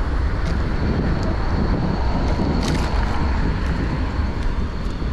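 Wind buffeting a GoPro action camera's microphone on a moving bicycle: a steady low rumble under an even rush of air and road noise, with a few small clicks or rattles, the loudest a little under three seconds in.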